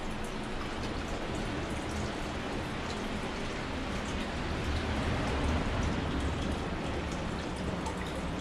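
Hot-spring water pouring steadily from a spout into a bath, a constant splashing with fine droplet ticks.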